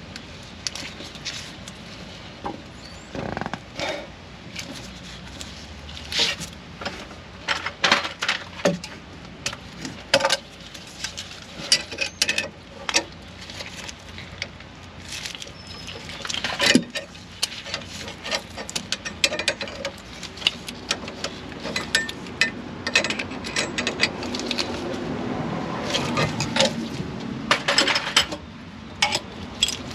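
Irregular metallic clicks, clinks and taps of a brake-line flaring tool being handled and fitted to a steel brake line, with a denser stretch of rubbing and scraping about two-thirds of the way through.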